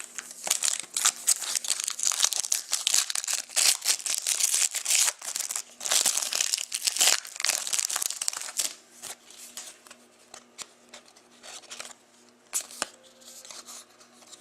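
Plastic trading-card wrapping crinkling and tearing as hockey card packs are opened, dense for about eight seconds, then giving way to scattered light clicks of cards being handled.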